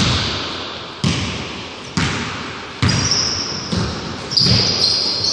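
A basketball being bounced on a hardwood gym floor, about five echoing bounces roughly a second apart. A high-pitched squeal sounds over the later bounces.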